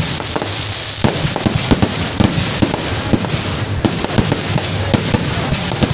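Aerial fireworks going off overhead: a dense, continuous crackle of many small pops from bursting red stars, with a few louder bangs standing out, about a second in and again near four seconds.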